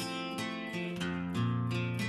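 Background music: acoustic guitar plucked and strummed in a steady run of notes.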